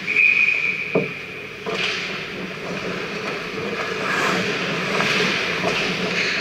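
Ice hockey skates scraping and carving on the ice, with a sharp knock of a stick or puck about a second in. A high steady tone sounds through the first second.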